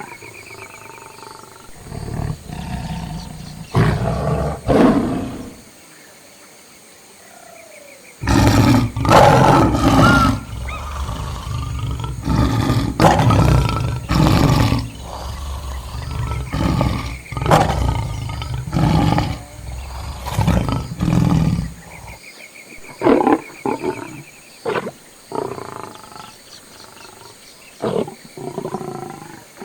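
Lions growling and roaring in a run of short, rough calls, thickest through the middle of the stretch.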